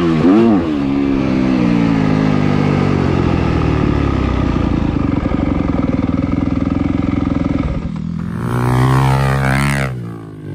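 Dirt bike engine heard close up, revving and then rolling off, its pitch falling over the first few seconds and settling into steady low running. About 8 s in, a different small pit bike engine revs up, rising in pitch, then drops away.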